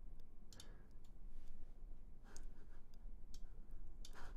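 Computer mouse clicking: a handful of separate, irregularly spaced clicks over a faint steady low hum.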